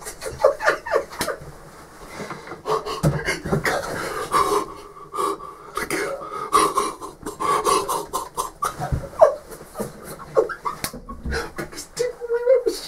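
A person breathing hard in panting breaths, mixed with hushed, whispered speech close to the microphone.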